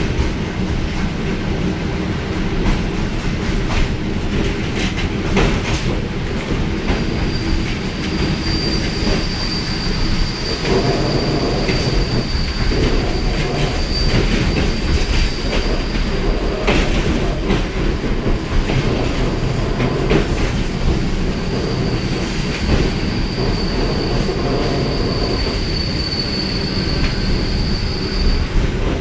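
Interior running noise of a ČD Class 475 electric multiple unit on the move: a steady low rumble from the wheels and bogies, with scattered clicks from rail joints. A thin, high squeal from the running gear comes in about seven seconds in, lasts roughly nine seconds, and returns at about 22 seconds until just before the end.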